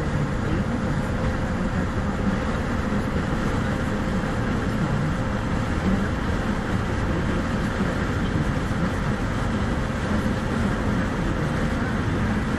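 Steady road, tyre and engine noise inside a car cabin cruising at motorway speed, with a faint steady hum.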